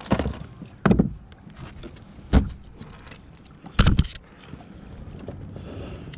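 Four sudden knocks and thumps on a kayak as a landing net and a fish-lip grip are handled, the loudest a little before four seconds in, over a low steady hiss.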